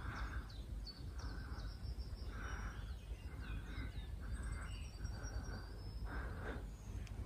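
Small birds chirping in woodland over a repeated shuffle of steps on a dry path, with a low rumble on the microphone.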